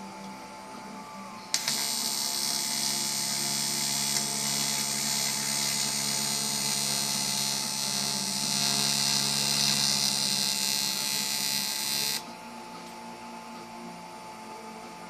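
AC TIG welding arc on aluminium from a Fronius MagicWave 2200: strikes suddenly about a second and a half in, runs as a steady buzz with a bright hiss for about ten seconds, then cuts off abruptly when the arc is broken.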